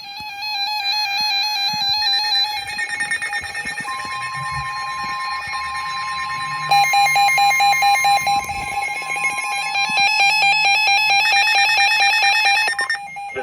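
Several NOAA weather radios alarming at once for a severe thunderstorm warning: overlapping electronic beeps and tones. A steady tone joins about four seconds in and stops near ten seconds, and a louder rapid pulsing beep starts about seven seconds in. All the alarms cut off suddenly near the end.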